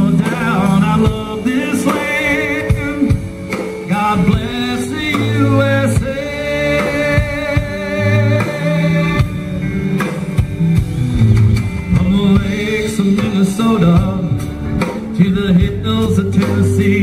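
Live country band music: electric guitar, bass, keyboard and drums playing, with a male singer's voice.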